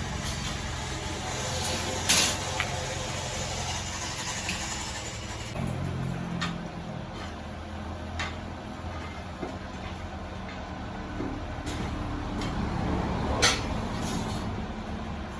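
MIG welding arc crackling steadily as wire feeds into the weld, over a low steady hum, with a few sharp clicks scattered through.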